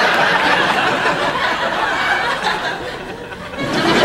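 Large audience laughing, a dense crowd laugh that thins out about three seconds in and swells again near the end.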